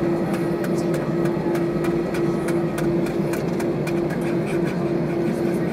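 Cabin noise of an Airbus A320 taxiing with its CFM56 engines at low power: a steady hum with one steady tone running through it, plus a scatter of light clicks and rattles.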